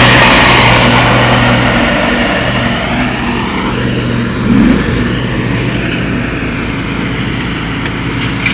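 Riding lawn mower engines running steadily at full throttle with the mower blades engaged.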